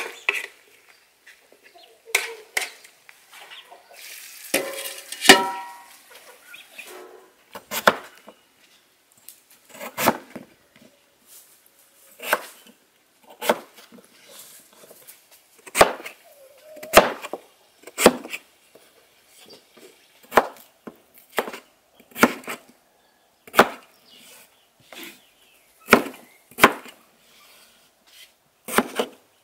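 A crinkle-cut knife chopping peeled potatoes on a wooden cutting board: single sharp knocks, roughly one a second. A louder, short sound comes about five seconds in.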